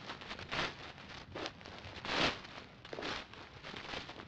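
Footsteps swishing through tall dry grass, the stalks rustling against the legs at about two steps a second, with one louder swish a little past halfway.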